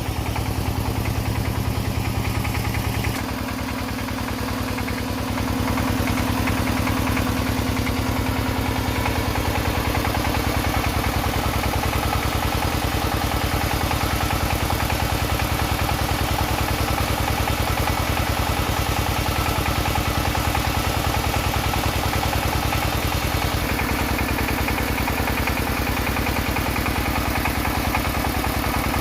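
Engine of a soil-test drilling rig running steadily with an even, rapid beat. Its tone shifts about three seconds in and again near the end.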